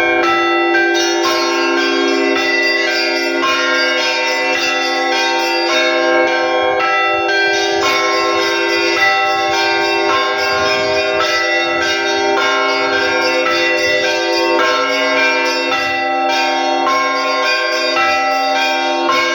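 Russian Orthodox monastery belfry bells rung by a bell-ringer in a continuous peal. Many bells are struck in quick succession over the sustained ringing of the larger bells.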